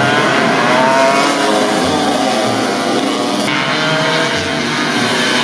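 Loud motor running steadily, with a slightly wavering pitch.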